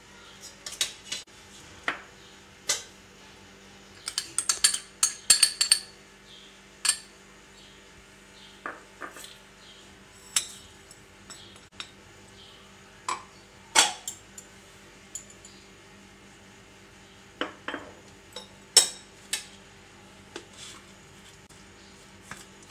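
A spoon clinking and scraping against small ceramic bowls as spices are tipped into a plastic tub of chicken: a scattering of sharp clinks, busiest a few seconds in, over a faint steady hum.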